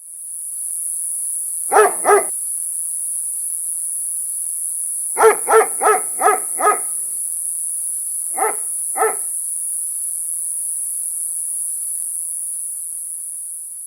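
Crickets chirping in a steady, high-pitched drone, fading near the end. Over it a dog barks in three bouts: twice about two seconds in, a run of five or six barks around five to seven seconds, and twice more near nine seconds.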